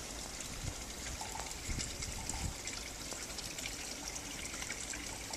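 Steady hiss of water with a fine scattered patter, and a few soft low thumps about two seconds in.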